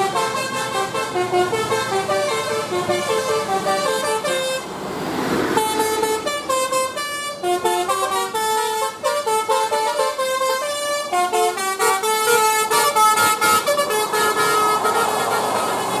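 Tour bus's 'basuri' telolet horn, a multi-trumpet melody horn, playing a tune of quick held notes that step up and down in pitch. About five seconds in, a brief rush of noise breaks the tune.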